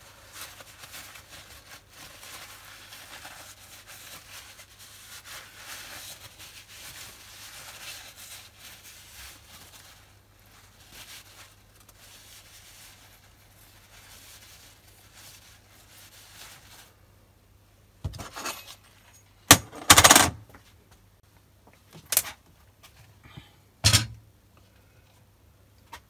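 Paper towel rustling and rubbing as it wipes the steel body of a dividing head. Later a handful of loud, sharp clacks and rustles.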